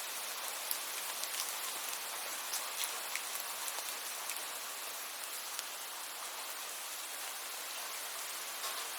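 Steady rain falling, a constant hiss with scattered sharp drip ticks.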